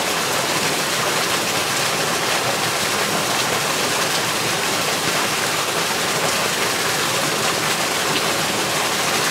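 Small waterfall pouring from a stone wall into a hot-spring pool, a steady splashing rush of water.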